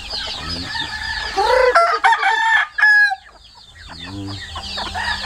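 A rooster crows once, starting about a second and a half in and lasting nearly two seconds, over steady high chirping. Chickens cluck near the end.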